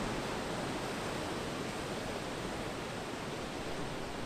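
Steady rush of heavy ocean surf breaking against rocks.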